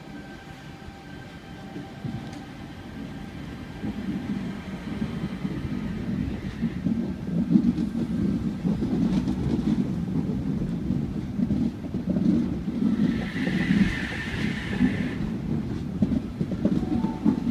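Sydney Trains H set (OSCAR) double-deck electric train pulling away from the platform. A thin steady whine at first gives way, after about four seconds, to a low rolling rumble that grows louder as the cars gather speed past the platform. A brief higher squeal comes about thirteen seconds in.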